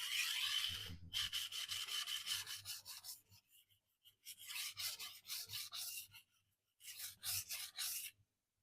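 Steel knife edge being stroked rapidly back and forth across a whetstone, in three runs of quick scraping strokes, several strokes a second, with short pauses between.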